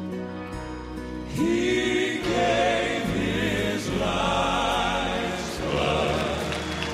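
Gospel piano playing an introduction, then a male vocal quartet comes in singing in close harmony over the piano about a second and a half in.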